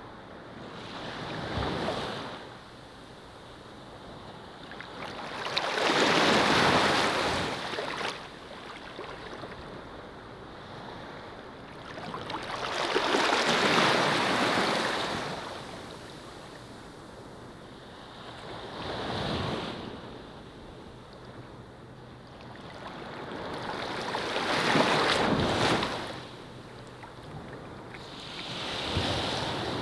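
Ocean surf washing onto a sandy shore: slow swells of rushing water about every five to six seconds, each building and fading away, over a steady soft hiss.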